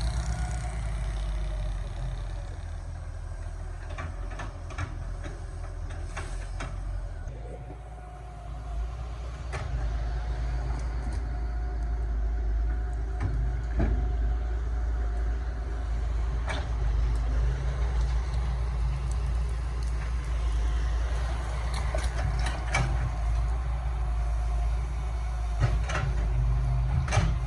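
Excavator's diesel engine running steadily, easing off briefly about eight seconds in and then picking up again, with scattered sharp knocks.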